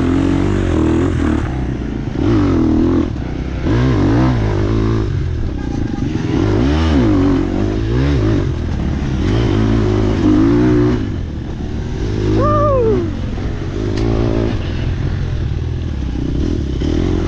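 Dirt bike engine revving up and falling off again and again as it is ridden hard along a twisty dirt trail, the pitch rising and dropping every second or two.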